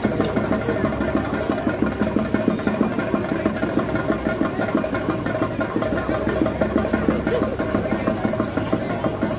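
Chenda drums played in a fast, steady roll of even strokes, with a steady held tone sounding over them.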